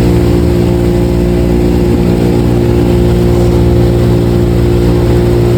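Speedboat engine running steadily at speed, a constant hum with an even rushing noise over it.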